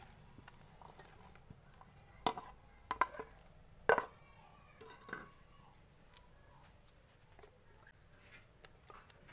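Wooden spatula knocking and scraping against a plate and the rim of a metal pressure cooker as sliced onions are pushed in onto raw mutton. There are a few sharp knocks, the loudest about four seconds in, over a low steady hum.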